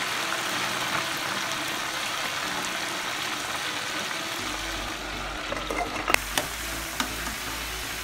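A whole chicken deep-frying in a pot of hot vegetable oil, sizzling steadily as the oil bubbles hard around it. A few sharp clicks come about six to seven seconds in.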